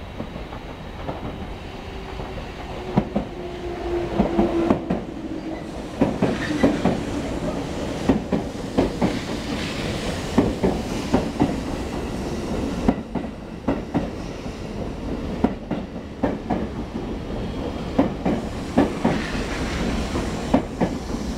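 JR Central 371 series electric train passing through a station without stopping. Its wheels click over the rail joints in a run of repeated clicks under a steady running noise, which grows louder as the train comes alongside.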